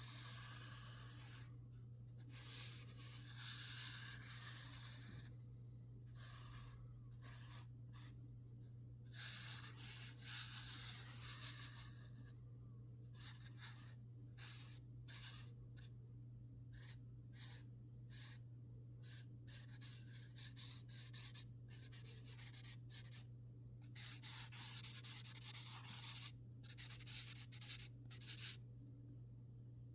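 A drawing tool scratching across paper in short, irregular strokes that start and stop, over a steady low hum.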